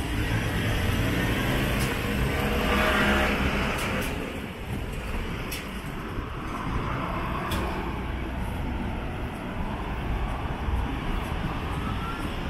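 City street traffic: cars and other road vehicles passing, with one louder pass about three seconds in.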